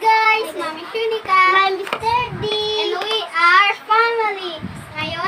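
A young girl's voice singing, with held, gliding notes.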